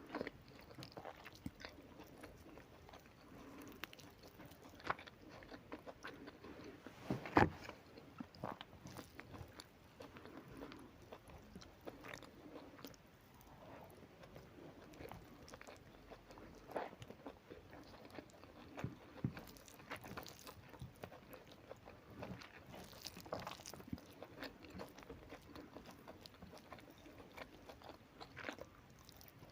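Close-up eating sounds of a person chewing a meal of rice, fish curry, fish fry and salad: soft, irregular chewing with small crunches and clicks. One sharper click stands out about seven seconds in.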